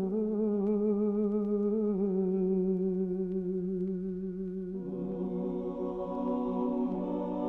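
Slow vocal music: long held sung notes with a wavering vibrato. About five seconds in, further voices join in a fuller chord.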